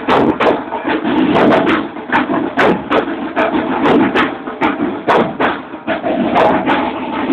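Marching band drum line playing a driving parade beat on snare and bass drums, with several sharp hits a second.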